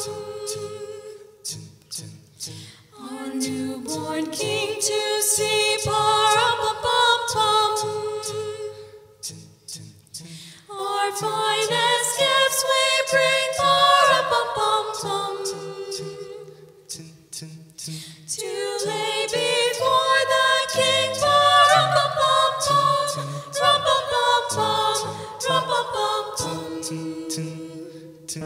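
A choir singing a cappella, several voices together in long held phrases with short pauses between them.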